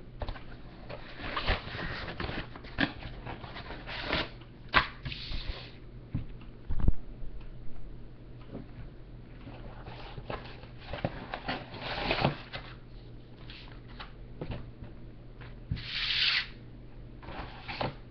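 Cardboard box being opened and paper tracts handled: irregular rustling, scraping and sliding of cardboard and paper, broken by short knocks and taps, over a low steady hum.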